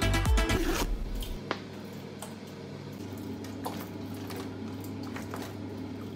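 Electronic dance music that cuts out about a second in, leaving a steady low hum in a small tiled room with a few faint clicks.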